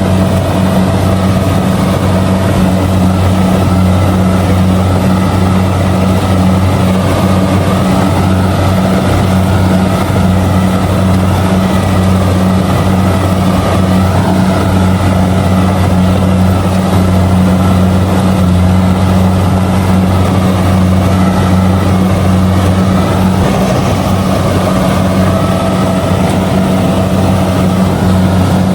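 Kubota DC70G combine harvester's diesel engine running steadily under load while harvesting rice: a constant, loud low drone.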